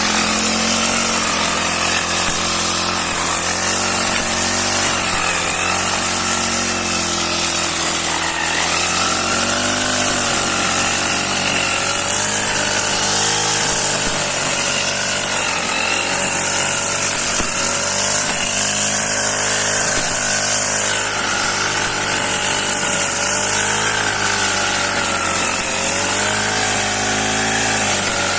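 35 cc four-stroke petrol brush cutter running with its grass-cutting head spinning, the engine pitch rising and falling as the throttle trigger is worked.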